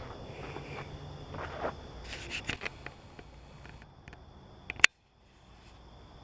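Handling noise: a cluster of light clicks and scrapes about two seconds in, then one sharp click just before five seconds, after which the sound cuts out briefly.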